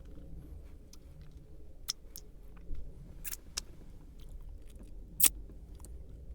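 A person chewing a crunchy snack close to the microphone, with sharp, irregular crunches; the loudest comes about five seconds in.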